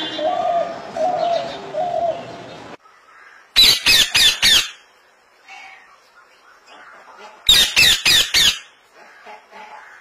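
Rose-ringed parakeet screeching: two quick runs of four shrill calls, one about a third of the way in and one near the end. Before them, in the first few seconds, a spotted dove cooing in low, repeated notes.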